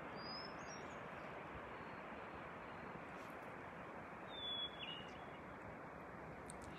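Faint outdoor ambience with a steady soft hiss, and two short high whistled bird calls, one right at the start and one about four seconds in that ends with a short falling note.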